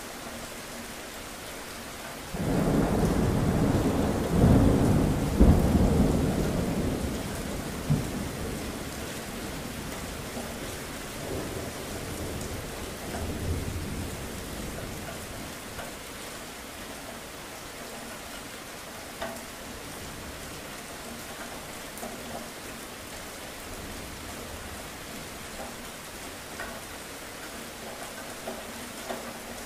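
Steady rain with thunder: a clap breaks in suddenly about two seconds in and rumbles loudly for several seconds before dying away. A lesser rumble comes a few seconds later, then steady rain alone.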